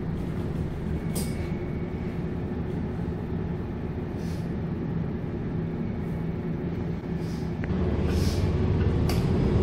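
MAN NL323F bus's diesel engine running, heard from inside the passenger cabin as the bus moves slowly, with a few short hisses of air; the engine gets louder near the end as the bus pulls away.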